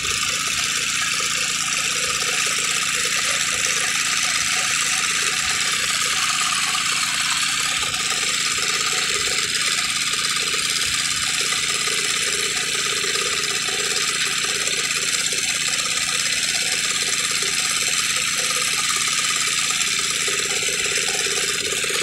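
Small engine of a water-well drilling rig running steadily, with a constant hiss over it.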